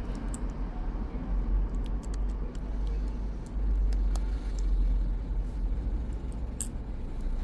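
A steady low rumble of background noise, with faint small clicks and ticks scattered through it as the phone's frame and parts are handled.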